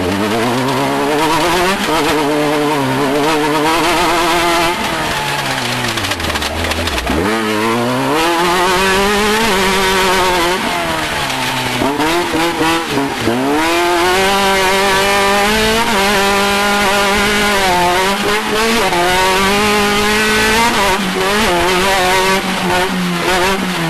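Off-road race vehicle's engine under hard driving, its pitch rising and falling as the throttle goes on and off, dropping low about 7 and 13 seconds in and climbing again.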